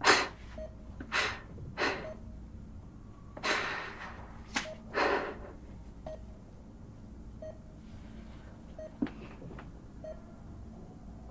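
A young man laughing softly under his breath, with several breathy huffs and gasps in the first few seconds. It fades to a couple of quiet breaths as his laughter turns to tears.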